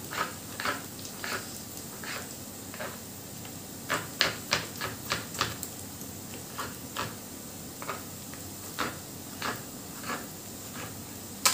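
Kitchen knife chopping tomatoes on a plastic cutting board: irregular taps of the blade hitting the board, with a quicker run of about six taps around four seconds in, over a steady faint hiss.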